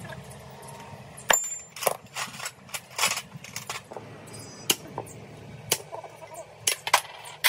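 Metal tools and steel parts clinking and tapping against each other: a dozen or so sharp, irregular clinks over a low steady hum.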